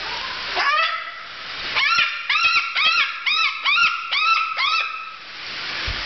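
White cockatoo giving a fast run of short, rising-then-falling squawks, about three a second, after a single call near the start. A breathy hiss fills the quieter stretches at the start and end.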